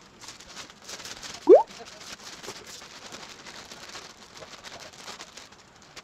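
Raindrops pattering in irregular, quick ticks. About a second and a half in there is a single short, loud squeak that rises in pitch.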